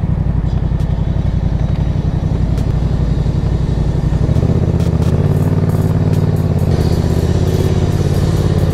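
Motorcycle engine running steadily at low speed, heard from the rider's seat, its pitch rising slightly about four seconds in.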